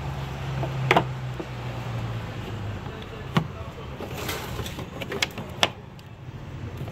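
Plastic air filter housing being pushed and snapped back into place by hand in an engine bay: a few sharp plastic clicks and knocks, the loudest about a second in. Under them a low steady hum fades out after about three seconds.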